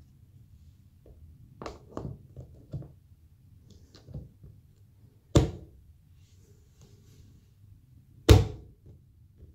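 Plastic tub enclosure being shut: a few light knocks and rubs of plastic, then two sharp plastic thunks about three seconds apart as the lid is pressed down onto the tub.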